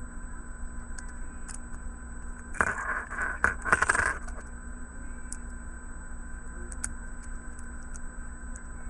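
Small hard toy parts clattering and clinking together in one short burst of about a second and a half, a few seconds in, then only scattered faint ticks.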